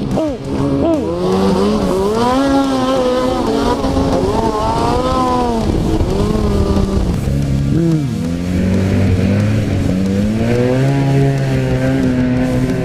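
Snowmobile engine running hard at high revs, its pitch rising and falling as the throttle is worked. There are quick drops and pick-ups in pitch right at the start and again about eight seconds in.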